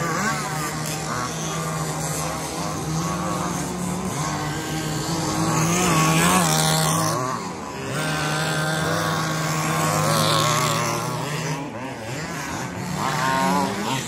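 Electric 2WD RC buggies racing on a dirt track: several motor whines rise and fall with the throttle over a steady low hum, loudest around the middle as cars pass close.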